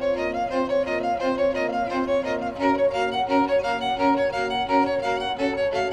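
Background music score: a melody of short, evenly paced notes.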